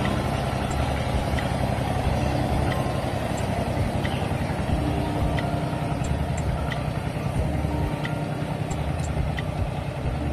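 Small wooden sampan's engine chugging steadily as the boat pulls away from the pier, growing fainter near the end.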